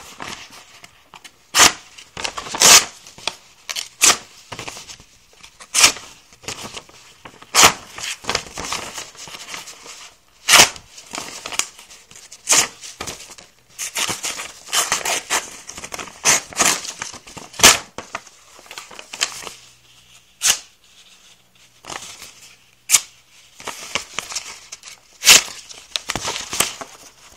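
Sheets of paper being sliced with the thin steel-alloy blade of a CardSharp credit-card folding knife, a short sharp cut every second or two, with paper rustling and crinkling between the cuts.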